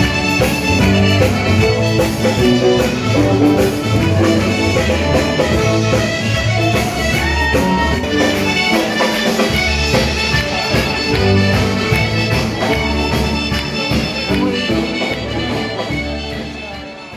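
Lively accordion-led dance music with a steady beat, in the style of a Scottish country dance band; it cuts off abruptly near the end.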